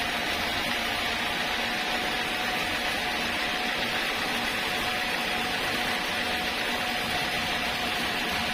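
Sawmill machinery running steadily: an even mechanical noise with a constant whine that does not change.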